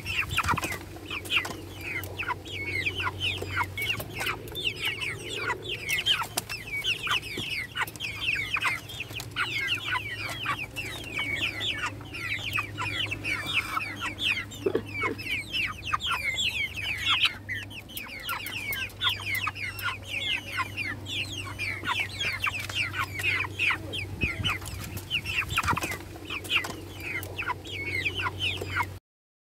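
A flock of caged chickens calling: many short, high calls overlapping without pause, over a steady low hum.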